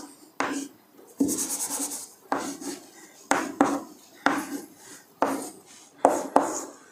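Chalk writing on a blackboard: a series of short taps and scrapes as letters are written one after another, about one letter a second.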